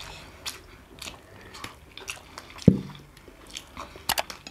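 People chewing and biting into momos, with scattered light clicks of chopsticks and spoons on steel plates. About halfway through comes a single loud knock, a steel tumbler set down on the table, and near the end a quick cluster of sharp clicks.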